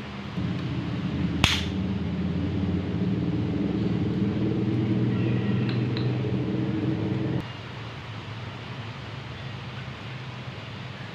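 A small motor-driven machine hums steadily, starting about half a second in and cutting off abruptly about seven seconds in. A single sharp click comes near the start.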